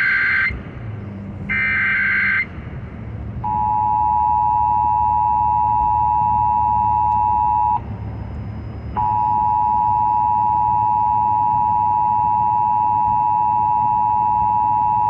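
Emergency Alert System test over AM radio: two short screeching digital data bursts (the SAME header), then the steady two-tone EAS attention signal starting about three and a half seconds in. The tone drops out for about a second near eight seconds and then resumes.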